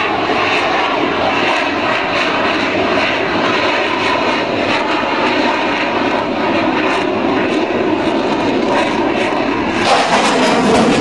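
Jet engine noise of an F/A-18 Hornet-type fighter flying a display pass, a loud steady rushing roar. About ten seconds in it turns louder and hissier as the jet comes closer.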